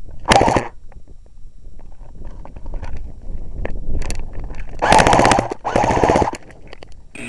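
Airsoft guns firing in rapid full-auto bursts: a short burst near the start, then two longer bursts of about a second each around the five- and six-second marks.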